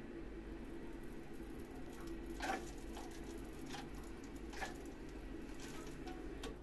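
ECA Calora Premix combi boiler sitting in its AP board-protection mode: a low steady hum, with a handful of faint sharp clicks scattered through the middle. The hum weakens near the end.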